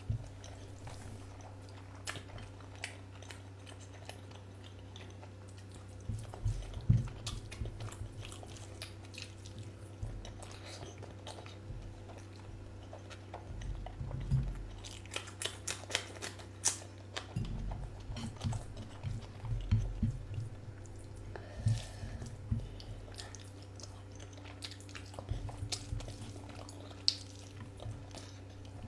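A person chewing and eating close to the microphone, in irregular bursts of wet mouth clicks and soft thumps, over a steady low hum.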